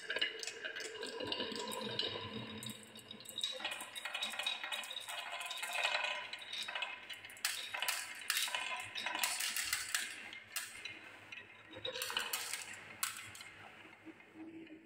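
Glass marbles rolling and clacking along a wooden marble-run track, knocking against the wood and against each other in rapid, irregular clicks that thin out and grow quieter toward the end.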